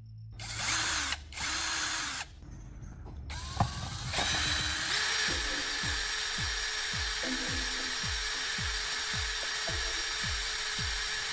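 Electric drill spinning a battery core rod while sandpaper is held against it to round off the end. It gives two short bursts, then runs steadily from about four seconds in, with a regular low pulsing about twice a second.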